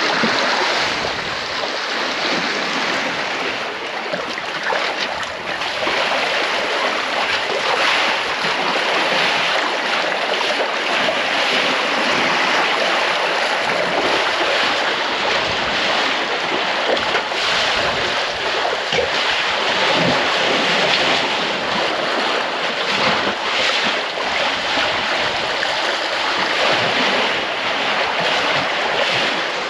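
Sea water rushing and splashing against the bow of a Leopard 45 sailing catamaran's hull as it moves through the sea, with wind buffeting the microphone. A steady wash of noise with no engine tone.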